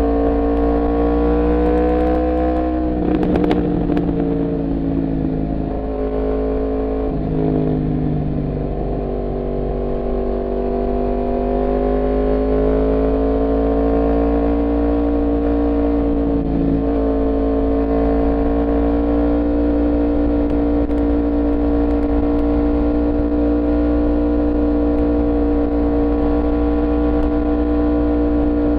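Yamaha MT-10 motorcycle's crossplane inline-four engine running at steady cruising revs while riding, its pitch dipping about three seconds in and briefly again around sixteen seconds.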